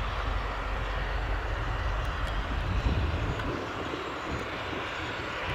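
Steady engine noise, even and unbroken, with no clear rise or fall.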